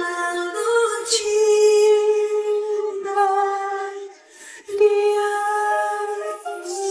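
A woman singing unaccompanied, holding long drawn-out notes, with a short break about four seconds in.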